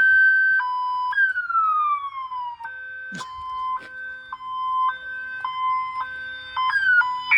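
Electronic siren tone from a Wolo Animal House Model 345 multi-sound horn speaker: a two-tone high-low pattern switching about every 0.8 s, broken about a second in by a long falling wail, then back to alternating tones. A brief knock comes about three seconds in.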